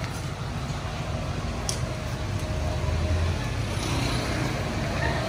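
Steady low rumble of a road vehicle running, with a couple of brief clicks.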